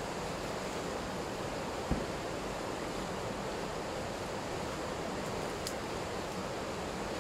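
Steady rush of river water pouring over a small weir and rapids, with one short low thump about two seconds in.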